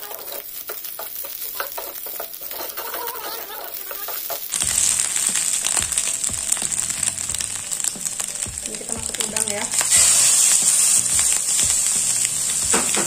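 Food frying in hot oil in a frying pan, stirred with a wooden spatula: a steady sizzle that starts abruptly about four and a half seconds in after a quieter stretch, and grows louder about ten seconds in as raw shrimp go into the pan.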